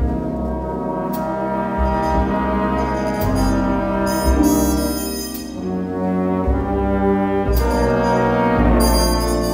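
College jazz band playing a slow ballad arrangement, the brass section sounding full, held chords over a walking low bass line.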